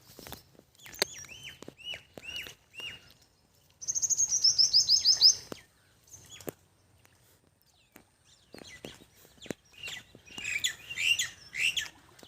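Birds calling: a few short down-slurred whistles, then about four seconds in a loud, fast run of high notes falling in pitch, and a jumble of chirps near the end. Short clicks are scattered between the calls.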